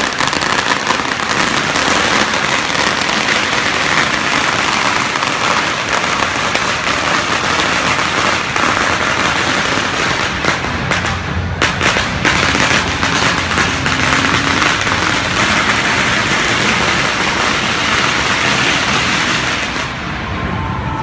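Long strings of firecrackers going off in a dense, continuous crackle of rapid pops, with a few brief gaps partway through and thinning out near the end.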